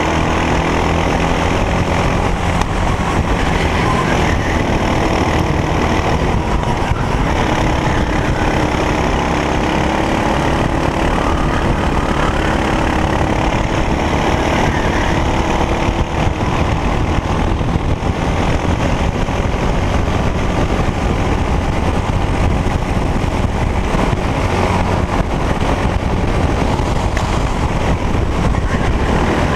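Racing kart's engine running at race pace, recorded on board the kart, loud and continuous, its note rising and falling through the corners.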